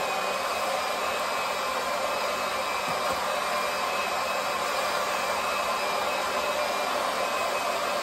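A pump running steadily, draining water out of a water heater tank, a constant motor hum and whir.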